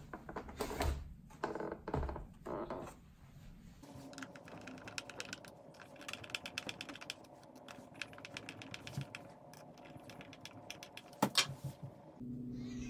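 Plastic reel housing knocked and handled as it is turned over, then a hand screwdriver driving screws into the plastic reel hub: a rapid run of small clicks and creaks, with one sharper click near the end.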